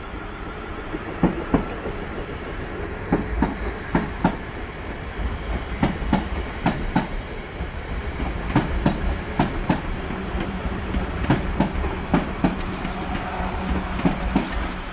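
Class 444 Desiro electric multiple unit pulling out of the station. A steady low rumble runs throughout, with repeated sharp clicks as its wheels pass over rail joints and points.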